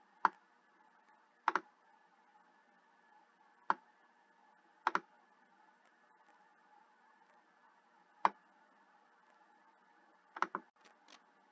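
Computer mouse clicking as letter tiles are dragged and dropped on screen: about eight sharp clicks spaced a second or more apart, some in quick pairs, over faint room tone.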